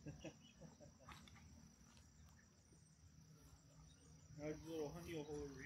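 Near silence with a faint, steady, high-pitched insect drone; a faint distant voice comes in about four and a half seconds in.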